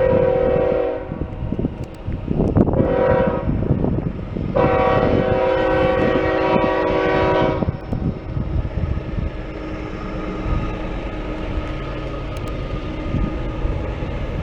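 Canadian Pacific ES44AC locomotive's air horn sounding a salute: a blast that cuts off about a second in, a short toot, then a long blast of about three seconds. After that comes the steady rumble of the loaded train rolling past.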